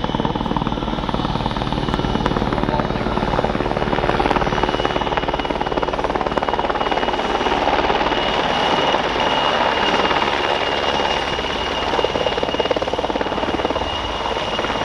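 PZL W-3 Sokol helicopter coming in to land: the main rotor beats steadily over the running twin turboshaft engines as it approaches and descends to a low hover. A steady high turbine whine rises out of the noise about halfway through.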